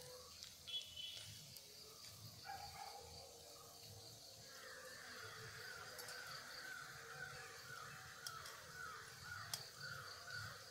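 Faint bird calling in quick repeated notes, about three a second, starting about four seconds in, over a faint steady high hiss.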